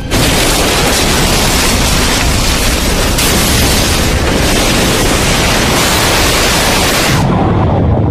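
A sudden, loud rushing roar of a mass of water bursting in and churning, as in a dramatized tsunami flood. It starts abruptly, holds steady, and about seven seconds in thins to a low rumble.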